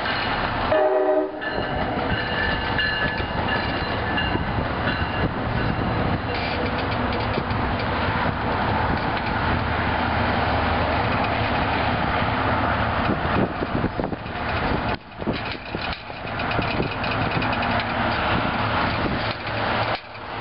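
NJ Transit diesel commuter train moving through the station: a horn sounds for a few seconds near the start over the steady rumble of the locomotive. Then the wheels clatter over the rail joints as the cars roll by.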